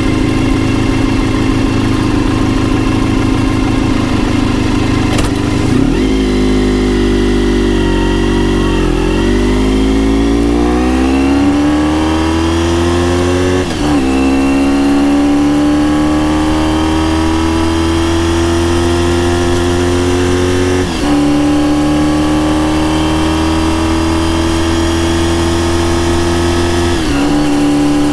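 Honda RVF400 (NC35) 400 cc V4 with gear-driven cams, exhaust through a TSR slip-on silencer, picked up by a microphone inside the seat. The engine runs steadily at first, then after about nine seconds pulls hard. Its pitch climbs and drops back at each of three upshifts, near the middle, about two-thirds in and near the end.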